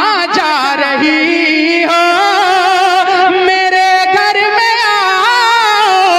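Male voice singing a naat in long, held notes that waver up and down, with a steadier lower vocal line sustained underneath.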